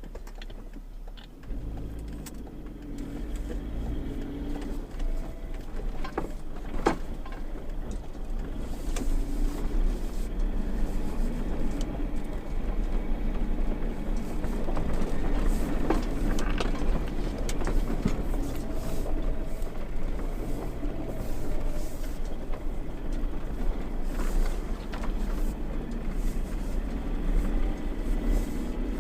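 Toyota Land Cruiser 80 (FZJ80) with its 4.5-litre straight-six petrol engine running while driving, a steady low rumble that builds over the first fifteen seconds or so. A few sharp knocks stand out, the clearest about seven seconds in.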